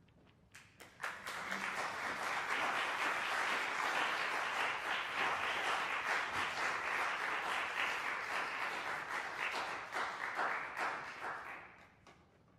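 Audience applauding: a few scattered claps at first, swelling quickly into steady applause that lasts about ten seconds and dies away near the end.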